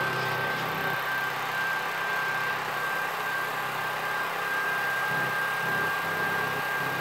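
Old Russian-made home movie projector running, its motor giving a steady high whine over the even whir of the film mechanism.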